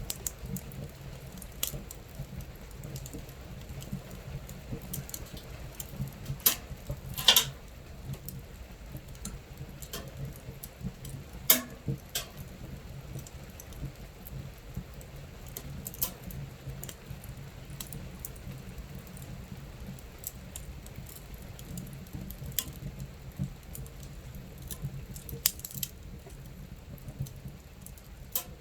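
Wood fire crackling in a camping stove, with irregular snaps and a few louder pops, the loudest about seven and eleven seconds in, over a steady patter of rain on the tent.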